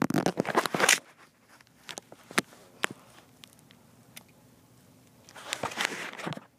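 Rustling and scuffing of the camera being handled while the person shifts about on a carpeted floor, in two noisy bursts, one at the start and one near the end, with scattered light clicks between.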